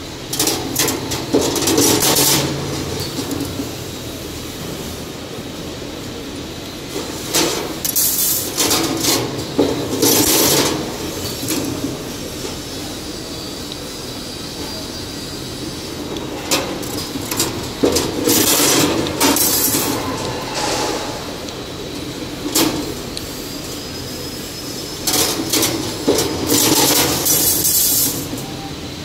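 XLC 2D CNC wire bending machine working through a bending cycle: four bouts of loud mechanical noise as it feeds and bends steel wire, with a steady hum between them.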